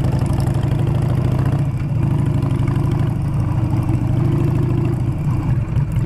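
Harley-Davidson V-twin motorcycle engine running under way, heard from the rider's own bike: a steady low pulsing note over a haze of wind noise, dipping briefly about two seconds in and again near the end.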